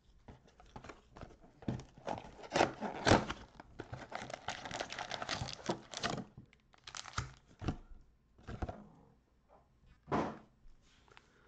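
A cardboard Donruss mega box being torn open and its stack of foil-wrapped card packs pulled out and set down. Crinkling and tearing of box flaps and pack wrappers, with sharp clicks and knocks as they are handled, thickest in the first half.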